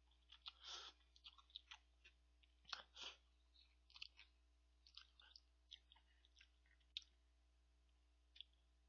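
Close-miked mouth sounds of a person eating instant ramen noodles: a couple of short slurps in the first few seconds, then chewing with many small wet clicks.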